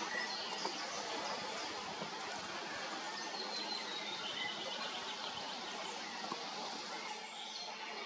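Wild woodland birds singing and chirping, short phrases repeating, over a steady background hiss.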